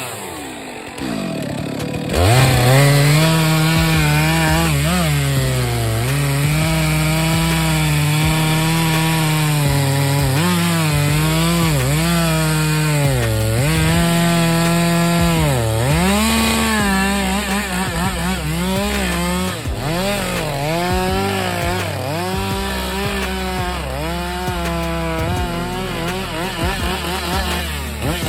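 Chainsaw running and cutting wood, its engine pitch dipping and recovering every second or two as the chain loads up in the cut.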